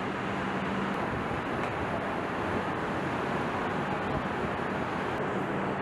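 Steady, even din of a vehicle assembly plant floor: constant machinery and ventilation noise with a low hum that fades about a second in and returns near the end.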